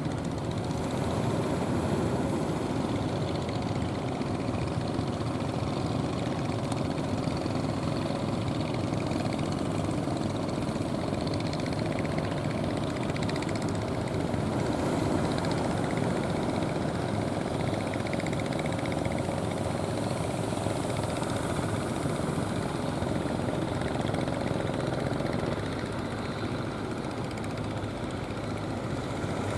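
Fishing boat engines running steadily, a continuous mechanical drone that eases slightly near the end.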